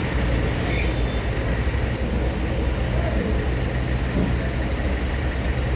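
Heavy diesel engine of site machinery running steadily with a low, even hum.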